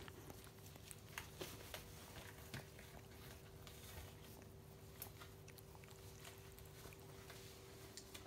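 Faint wet clicks and smacks of a cockapoo mother licking her newborn puppy clean, over a steady low hum.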